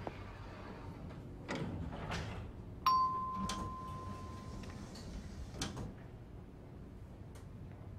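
Elevator arrival bell dinging once about three seconds in: a single clear tone that rings and fades over nearly two seconds. Faint low rumbles come just before it, and a soft knock follows later.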